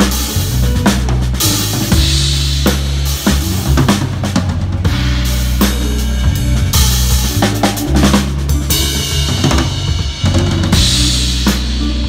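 Drum kit played with sticks in a band groove: kick, snare and tom strokes over a steady low bass line, with cymbal crashes about two seconds in and again near the end.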